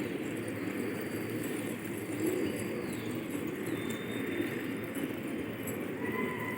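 A flock of domestic pigeons cooing together, a steady, continuous low sound of many overlapping coos.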